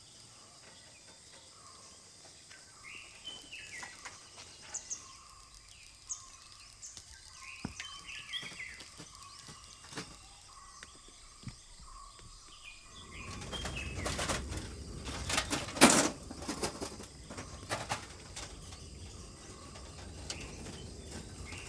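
Small birds chirping with short calls over a faint outdoor background. About two-thirds of the way in, a louder spell of rustling with sharp clicks and knocks takes over.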